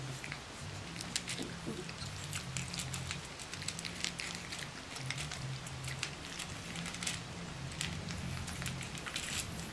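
Six-week-old Boston Terrier puppies eating dry kibble from a metal pan: a steady patter of small irregular crunches and clicks as the kibble is chewed and pushed around the pan.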